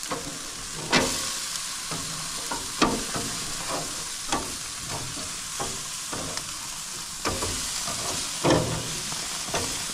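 Pork chops sizzling steadily on a hot gas grill, with irregular clicks and knocks of metal tongs against the grill grates as the chops are checked and turned.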